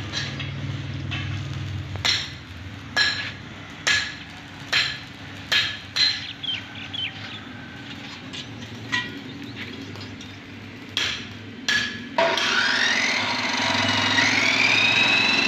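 A run of sharp, ringing metal clanks, about one a second, as steel pieces are handled. About twelve seconds in, an abrasive cut-off saw starts up loud, its whine rising in pitch as the motor spins up, then running on.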